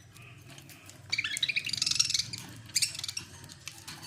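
Budgerigars chirping: a quick, dense chattering burst about a second in, then a shorter burst of chirps near three seconds.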